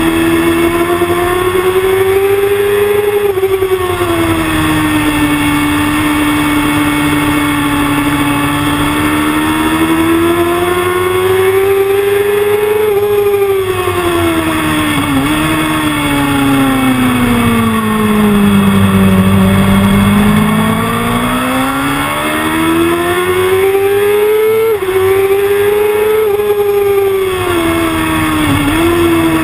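Sport motorcycle engine at full track speed, recorded onboard. Its note climbs and falls several times as the rider accelerates and eases off, with sudden breaks at gear changes, over a steady rush of wind and road noise.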